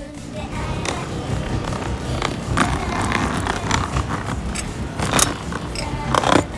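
Outdoor street ambience: a steady low rumble with scattered short clicks and scrapes, the sharpest about five seconds in and again just before the end.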